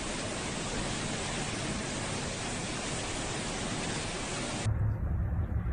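Steady hiss of torrential rain and wind in a storm. About 4.7 s in it cuts to a low rumble of strong wind.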